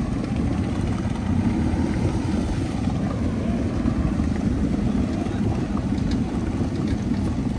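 Outboard motor running in gear, its propeller churning shallow water as the boat pushes off the ramp after bottoming out.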